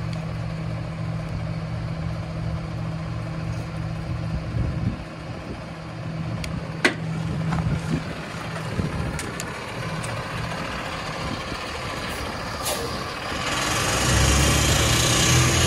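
Diesel engine of a rear-loader garbage truck running steadily at idle, with a few sharp clanks and clicks in the middle. Near the end the engine pulls harder and grows louder as the truck drives off past.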